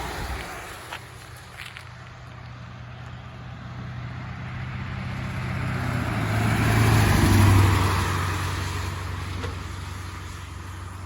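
A road vehicle driving past: it grows steadily louder, is loudest about seven seconds in, then fades as it moves away.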